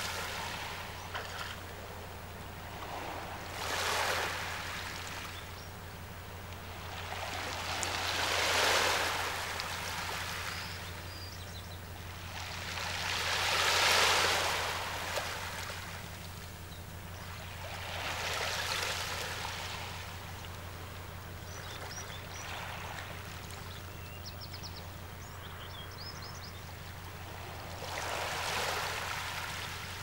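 Small waves washing in at the water's edge, a soft wash of water that swells and fades about every five seconds, over a steady low hum. A few faint high chirps come through now and then.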